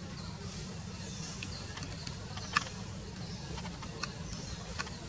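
Outdoor background: a steady low hum with faint, repeated high chirping over it and a few sharp clicks, the loudest about two and a half seconds in.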